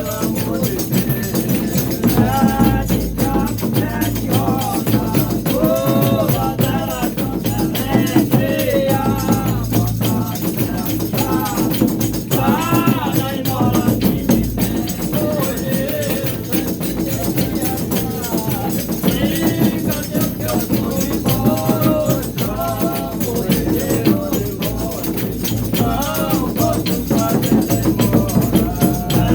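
A Brazilian Reisado folk group's music: voices singing a folk song in short repeated phrases over steady rattling percussion from shakers and tambourine-like instruments.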